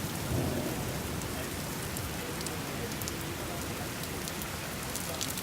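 Steady rain falling, with sharp ticks of drops striking a surface that come more often near the end, and a brief low swell about half a second in.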